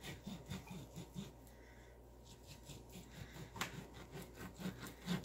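Knife sawing through a raw steak on a wooden cutting board: faint, soft strokes repeating a few times a second, with a light click or two.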